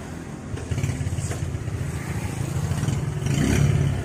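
Freshly rebuilt Honda Megapro single-cylinder four-stroke motorcycle engine running with a new clutch-shaft bearing fitted. It picks up a little about a second in and gets louder for a moment near the end.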